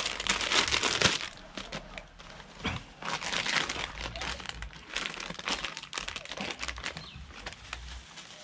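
Plastic packaging crinkling and rustling in irregular bursts as it is opened and the part is unwrapped by hand, loudest in the first second, with further bursts about three and five seconds in.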